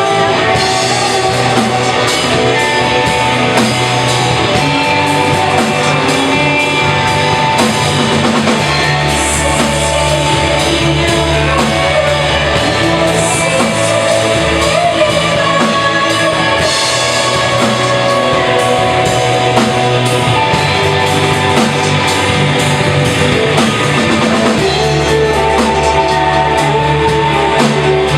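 Rock band playing live: electric guitars over a steady drum-kit beat, loud throughout.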